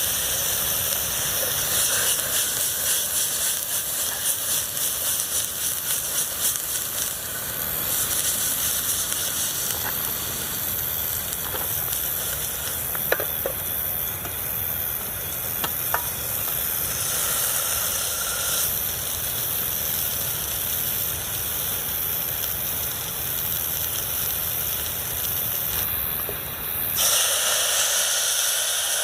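Steady rain falling on a tent, a dense hiss with a few single louder drops. It shifts abruptly several times between slightly different takes.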